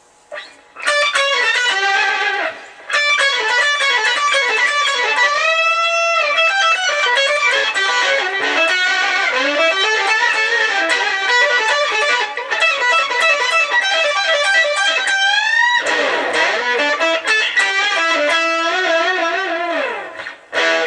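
Electric guitar played through a DigiTech Whammy DT pitch shifter on its octave-up setting: a run of notes and chords, with a wavering pitch glide about six seconds in and a rising sweep about fifteen seconds in.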